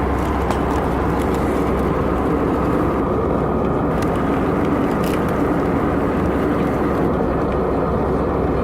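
Steady cabin noise inside an Airbus A320-200, the engines and rushing air heard from a passenger seat, with a couple of faint clicks.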